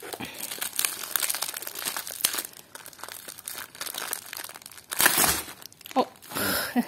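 Plastic bubble wrap crinkling and crackling as a parcel is handled and cut open with scissors, with a louder burst of crinkling and tearing about five seconds in.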